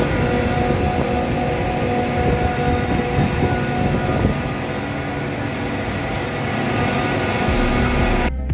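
Carrier 30XA air-cooled screw chillers running at full load: a loud, steady drone of condenser fans and compressors, with several steady tones in it. Near the end it cuts off and music begins.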